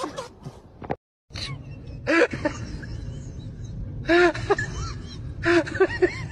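Short voiced calls that rise and fall in pitch, several in a row, over a low rumbling background; there is a brief dead gap about a second in.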